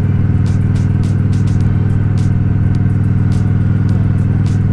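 Honda Shadow Spirit 750's V-twin engine running steadily at a constant cruising speed, heard from on the bike, with no change in engine speed.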